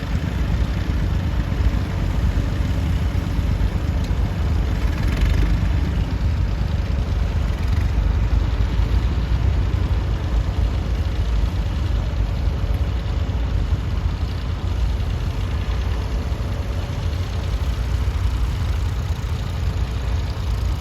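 Massey Ferguson 148 tractor's three-cylinder diesel engine running steadily while pulling a plough.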